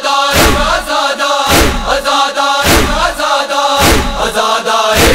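A group of men chanting a Shia noha chorus in unison, with a heavy chest-beating (matam) strike about once a second keeping the beat.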